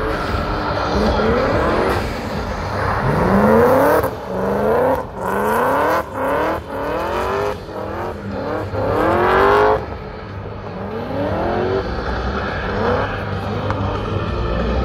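Supercharged BMW M62B44 4.4-litre V8 in a BMW E30 drift car revving hard in a string of quick rising sweeps, the revs dropping sharply between them, with the busiest stretch from about four to ten seconds in. After that it settles to a steadier, lower running note.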